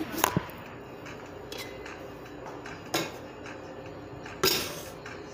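Metal pot and kitchenware being handled on a kitchen counter: a few light clicks at the start, a knock about three seconds in, and a louder clang with a short ring-out about four and a half seconds in, over a steady low hum.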